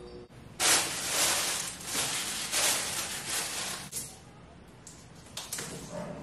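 Clear plastic packaging crinkling and rustling in a run of hissy bursts as sausages are handled and cut from the bag, then quieter with a few light clicks from kitchen scissors near the end.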